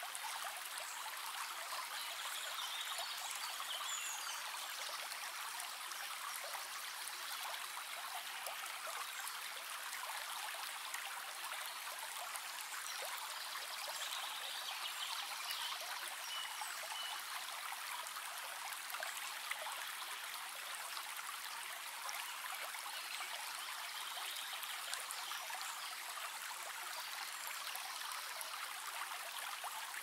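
Shallow stream running steadily over a pebbly riffle, a continuous gentle rippling of water.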